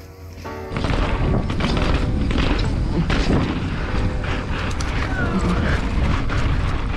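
Mountain bike riding over paving, with loud rough wind and rolling rumble on the microphone that starts abruptly about a second in.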